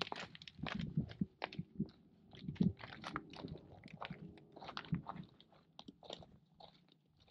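Footsteps crunching on rocky, gravelly desert ground with brush scraping, in quick irregular steps that fade as the walker moves away.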